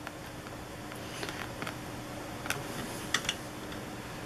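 A few light clicks and taps of a needle-spout oil bottle and hands against the metal underside of a Consew 206RB industrial sewing machine while oil is dripped onto its shafts, over a faint steady hum.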